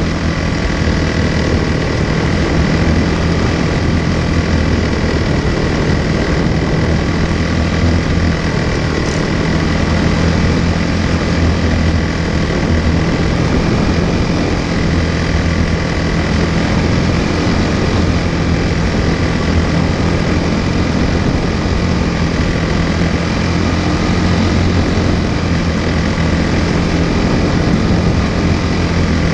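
Quarter midget's single-cylinder Briggs & Stratton Animal engine running steadily, heard on board the car, with no clear rise or fall in pitch.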